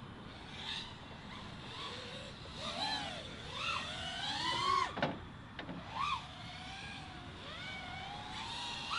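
FPV freestyle quadcopter's brushless motors whining, the pitch gliding up and down again and again with the throttle during flight. A short sharp knock about five seconds in.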